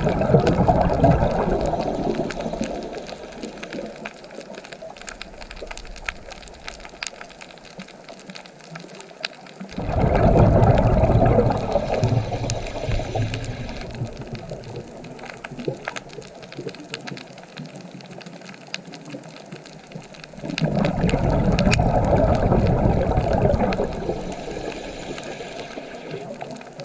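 Ocean waves breaking on the shore three times, about every ten seconds, each coming in suddenly and then dying away over several seconds with a crackling wash.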